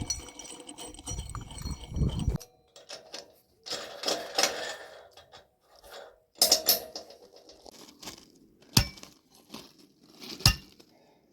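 Loose metal hardware clinking and rattling as it is handled, with a few sharp metallic clicks in the last few seconds.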